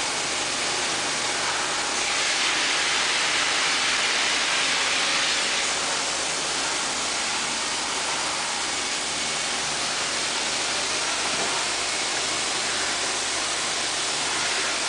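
Okuma CNC lathe running with a steady hiss that swells a little for a few seconds about two seconds in.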